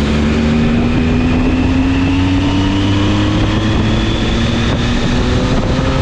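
Triumph Tiger 800's three-cylinder engine pulling on the move, its pitch rising slowly and steadily as the bike gathers speed, over a steady rushing noise.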